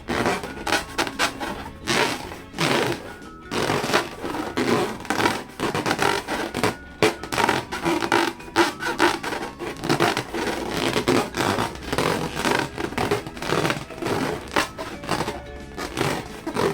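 Balloons and slime being squeezed and rubbed by hand: a rapid, irregular run of squishes, crackles and scrapes.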